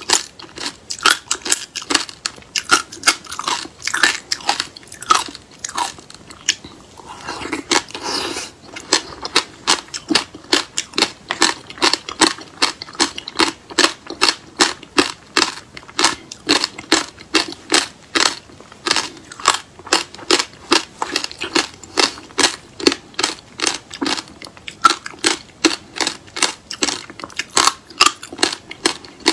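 A person chewing frozen passion fruit pulp with its seeds: a rapid, steady run of crisp crunches.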